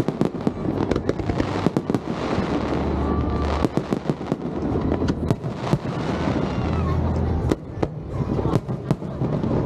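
Aerial fireworks bursting in a dense run of sharp bangs and crackles, with deeper booms now and then.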